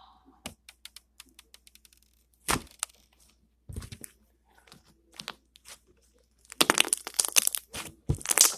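Bead-filled slime being squeezed and poked by hand, making scattered sharp clicks and short crackles, then a denser, louder run of crackling about six and a half seconds in.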